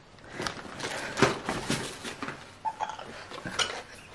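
Cardboard product boxes and plastic bags being handled and shifted while gifts are unpacked: irregular crinkling, rustling and light knocks, starting about half a second in.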